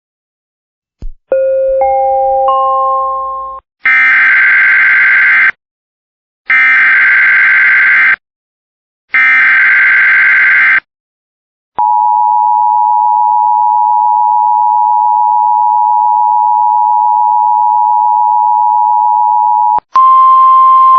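Emergency Alert System opening: a short rising three-note chime, then three screeching bursts of SAME digital header data, then the steady two-tone EAS attention signal for about eight seconds. Another electronic tone starts near the end.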